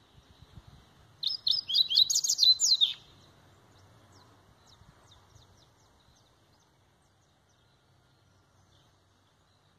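Caged double-collared seedeater (coleiro) singing one short phrase of fast, high notes, about two seconds long, starting a little over a second in, in the Laranjeira song style. Faint scattered chips follow.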